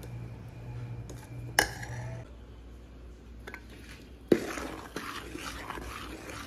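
Kitchen dishes and utensils clinking and clattering: a sharp clink about a second and a half in, then a louder knock about four seconds in followed by a couple of seconds of clattering. A low steady hum stops about two seconds in.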